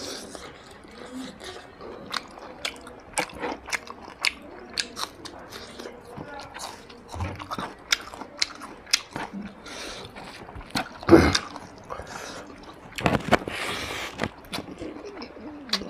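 Close-miked chewing and lip-smacking as a man eats mutton and rice with his fingers, with many sharp wet mouth clicks and the loudest smack about eleven seconds in.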